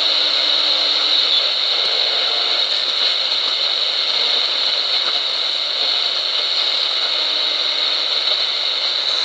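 A portable radio, modified to receive up to 29 MHz on its SW2 band, hissing with steady static through its small speaker while tuned around the 27 MHz band, with no clear station coming through.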